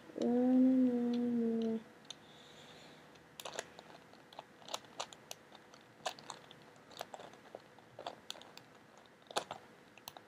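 Plastic Megaminx (twelve-sided twisty puzzle) being turned by hand: a run of irregular sharp clicks as its faces are twisted, starting about three seconds in. Near the start, a short hummed note from the solver.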